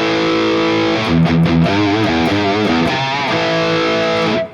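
Heavily distorted electric guitar played through a NUX MG-30 modeller's high-gain amp sound: a lead riff of sustained notes with wide vibrato and bends, cutting off abruptly near the end.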